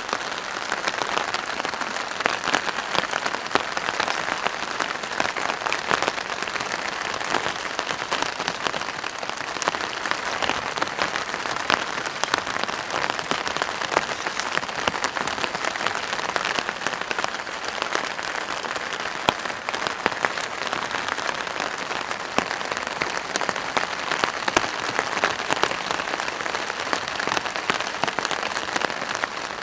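Steady rain pattering on a plastic tarp: a dense, even hiss of drops with many small sharp taps where individual drops strike the sheet.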